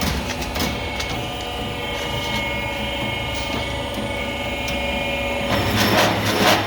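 Milling machine with hydraulic feed and clamping running with a steady mechanical hum and scattered clicks. About five and a half seconds in, it turns louder and rougher, with a stronger low hum.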